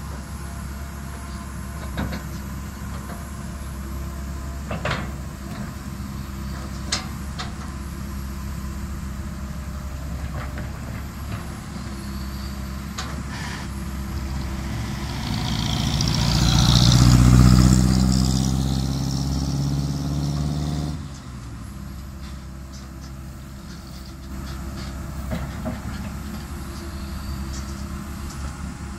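Tracked excavator's diesel engine running steadily, with a few sharp metal clanks in the first half. Around the middle it grows louder under load with a hiss on top, then drops back suddenly about two-thirds of the way through.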